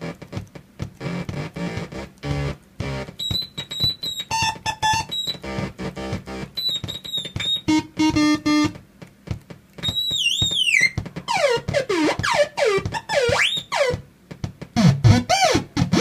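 Homemade DIY noise box with LFO-modulated oscillators and photocell-controlled 'photo theremin' oscillators, playing loud, stuttering, chopped electronic tones. From about ten seconds in the tones swoop up and down in pitch over and over.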